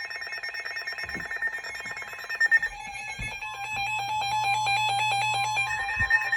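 Emergency weather radio's alert alarm: a fast pulsing beep that drops to a lower pitch about three seconds in and returns to the higher pitch near the end, signalling that a new warning is coming in. Two short knocks sound partway through.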